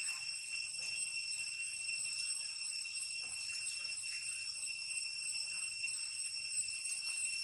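Steady high-pitched insect drone, a continuous ringing buzz that holds at one pitch without letting up.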